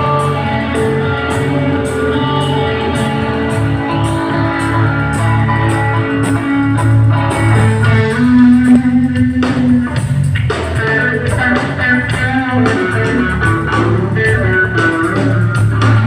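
Rock band playing live with no singing: guitars over bass, with a steady beat of high percussive clicks about twice a second.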